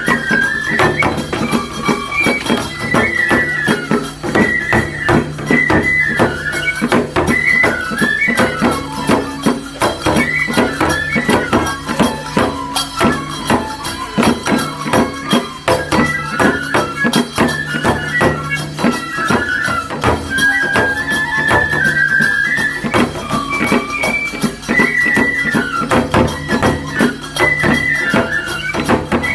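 Traditional Japanese music: a high flute melody over fast, dense percussion and a steady low drone.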